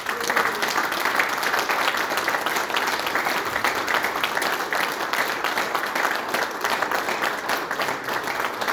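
Audience applauding, a dense even clapping that starts abruptly and keeps steady.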